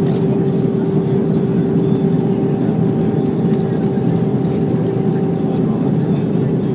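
Airbus A320 cabin noise heard from a window seat over the wing during the descent: a steady drone of the jet engines and rushing airflow, with a low steady hum running through it.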